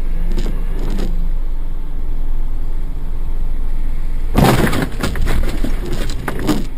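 Steady road and engine rumble from inside a car on a wet road. About four and a half seconds in, a loud, rough noise lasts about two seconds.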